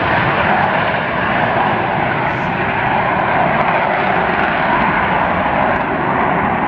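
Steady, loud jet noise from an F-35A Lightning II's single Pratt & Whitney F135 turbofan on the airfield.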